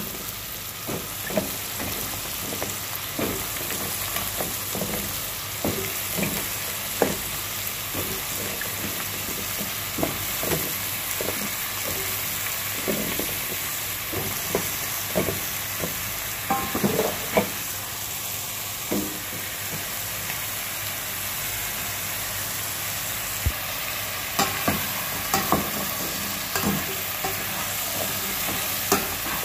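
Oil sizzling steadily in a pot of sautéing chicken and aromatics, with many short knocks as squash cubes are dropped in. Near the end a metal spoon clicks against the pot as the contents are stirred.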